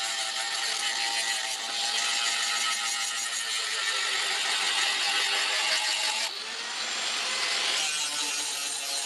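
A power grinder working on steel, a steady rasping noise that changes abruptly about six seconds in.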